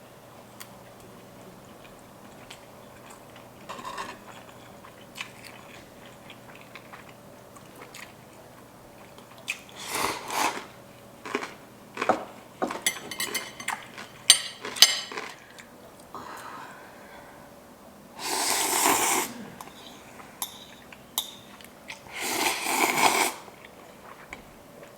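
Close-miked eating of instant ramen: scattered chewing and crunching with light taps of utensils on a bowl, then two loud slurps of noodles, each lasting about a second and a half, the first about two-thirds of the way in and the second near the end.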